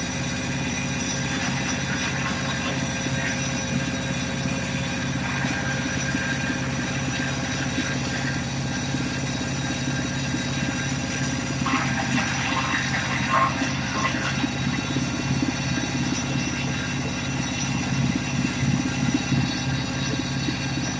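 Diesel engine of a 40 hp wood chipper running steadily, with a brief burst of higher-pitched crackling and rattling about twelve seconds in.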